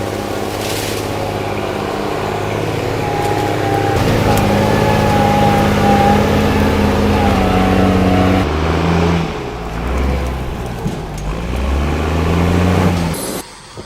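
Engines running, the pitch rising and falling as they rev. The sound changes abruptly about four seconds in and again past the halfway mark.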